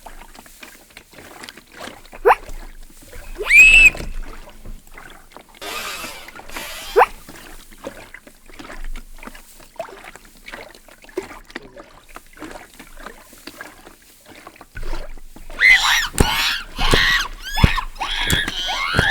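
Hand-made foley noises: scattered knocks and clatters with a few short squeaks and one high cry early on. Near the end comes a louder, busier run of knocks and high, rising-and-falling cries.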